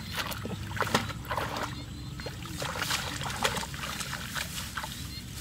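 Water splashing and sloshing in irregular bursts over a steady low rush of water.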